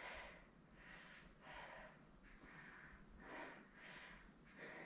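Near silence with faint, short breaths repeating a little faster than once a second: a person breathing through a strenuous one-legged standing yoga balance.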